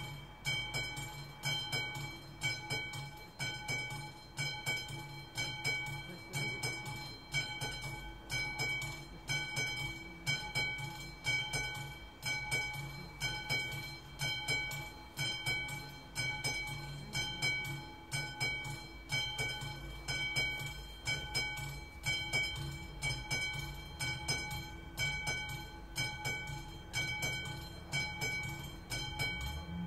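Classic mechanical warning bell of an AŽD 71 level-crossing signal ringing in a steady, even rhythm of strokes, each stroke ringing on between strikes. The crossing is in its warning state, signalling an approaching train.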